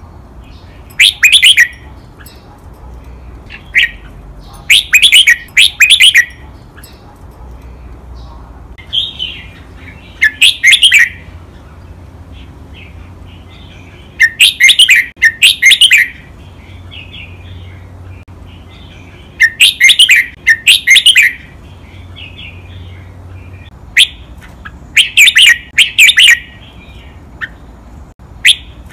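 Red-whiskered bulbul singing loud, clear, high song phrases in bursts every few seconds, many of them given twice in quick succession.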